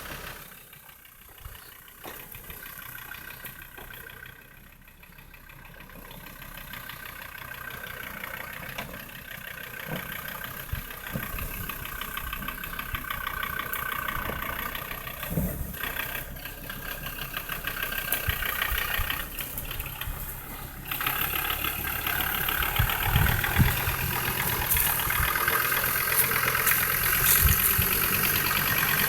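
Land Rover Defender 130's engine running, getting steadily louder, with a marked jump in level about two-thirds of the way through. Several low thumps come after the jump.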